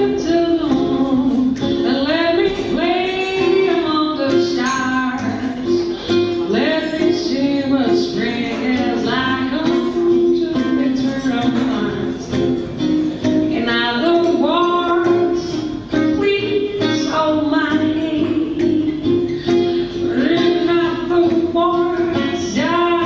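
A female voice singing with a plucked acoustic guitar accompaniment.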